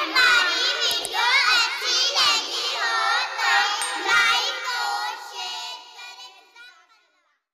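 Short closing jingle of high-pitched singing, like children's voices, that starts suddenly and fades out near the end.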